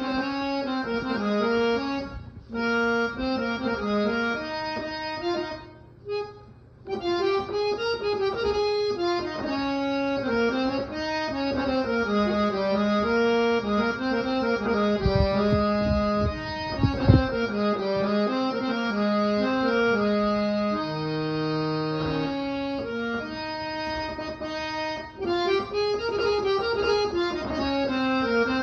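Instrumental background music: a melody of held notes on a reedy keyboard-like instrument, with short breaks about two and six seconds in and a few low thumps partway through.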